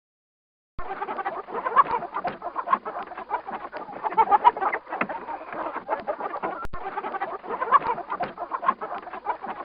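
A flock of birds calling all at once, many short calls overlapping in a dense chatter, starting abruptly about a second in after a moment of silence.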